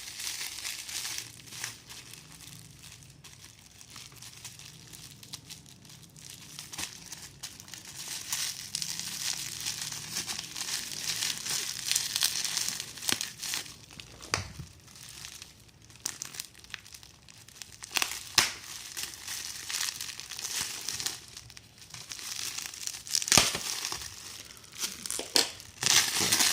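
Plastic packaging crinkling and rustling as it is handled and pulled open, with a few sharp clicks or knocks, the loudest near the end.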